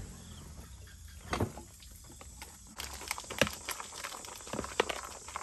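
Small fish and water being shaken out of a woven bamboo fish trap into a plastic basin, making irregular wet splashes and knocks. There is one knock about a second and a half in, and they come thick and fast in the second half.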